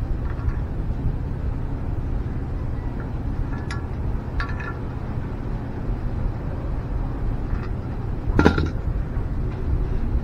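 A few light metallic clinks from a brass shower mixer valve with copper pipe stubs being handled, over a steady low background rumble.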